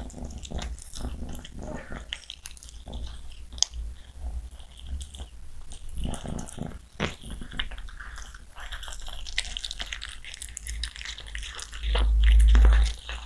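A cat licking and chewing at a piece of raw meat: irregular wet smacking and crunchy biting clicks. A loud low rumble lasts about a second near the end.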